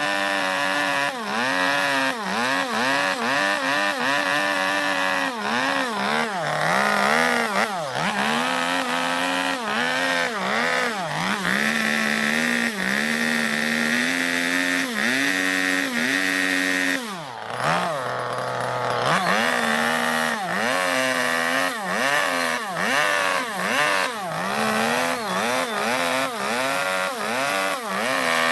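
Gasoline chainsaw hollowing out a zelkova-wood bowl, its engine revving up and down about once a second as the chain bites into the wood. About two-thirds through it drops briefly to idle, then revs back up and carries on cutting.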